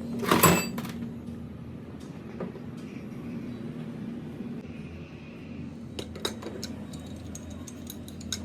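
Metal parts and tools being handled: a loud clatter about half a second in, then a run of light clicks and clinks near the end, over a steady hum.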